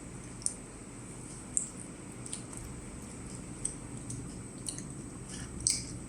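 A child chewing food with wet, squishy mouth sounds and short smacking clicks every second or so.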